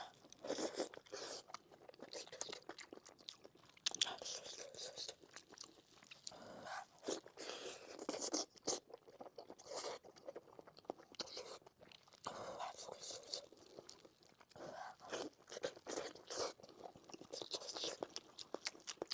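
Close-miked mouth sounds of biting and chewing fatty pork knuckle: wet chews, smacks and crunches in irregular bursts.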